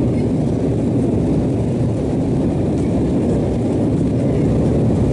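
Steady low rumble of an Embraer 190's GE CF34 turbofan engines at takeoff power, with airflow noise, heard inside the passenger cabin.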